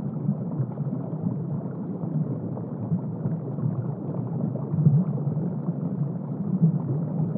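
Underwater submarine sound effect: a steady, low, muffled rumble that stops suddenly at the end.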